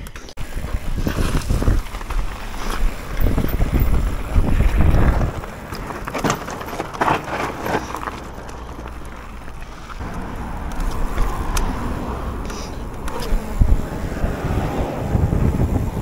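Mountain bike ridden fast downhill: tyres rolling over dirt and gravel, with the chain and frame rattling over bumps in the first half, and wind rumbling on the microphone.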